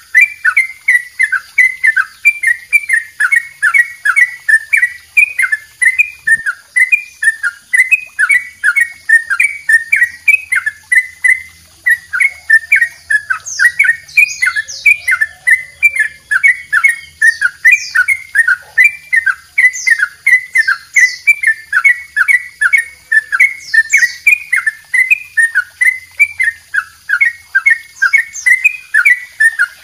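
A caged yellow-vented bulbul (trucukan) singing its long 'double ropel' song: a continuous, rapid run of short falling notes, about three a second.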